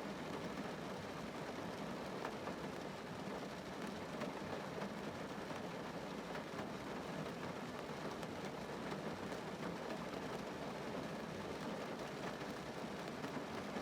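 Rain falling on a car's roof and windows, heard from inside the car: a steady, even rush of rain with a few faint individual drop ticks.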